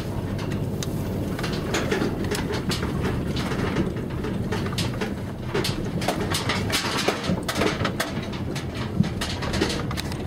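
Inside a car driving slowly over a rough dirt track: a steady low rumble of engine and tyres, with frequent rattles and knocks as the car jolts over bumps.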